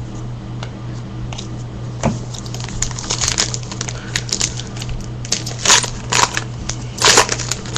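Crinkling and crackling of a foil trading-card pack wrapper and cards being handled, in irregular bursts from about two seconds in, over a steady electrical hum.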